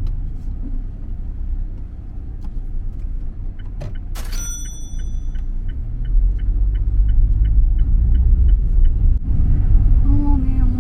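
Low road and engine rumble of a car heard from inside, building after the middle. A short chime about four seconds in is followed by a run of evenly spaced turn-signal clicks, about three a second, for several seconds.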